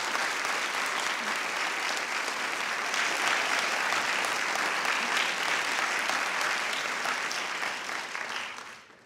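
An audience applauding, a steady crowd of clapping hands that dies away near the end.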